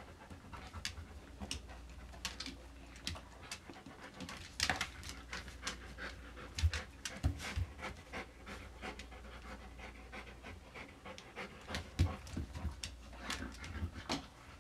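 A dog panting, with scattered sharp clicks throughout and a few low thumps, several about halfway through and one more later.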